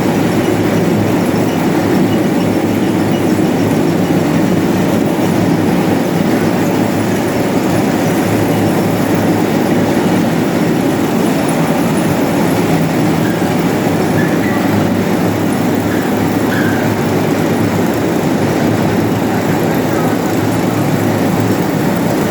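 OVS-25 self-propelled grain cleaner running steadily, its machinery giving a loud, even rattling drone.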